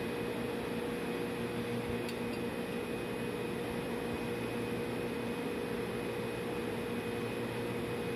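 Steady hum of running machinery with a constant tone. A faint light click about two seconds in.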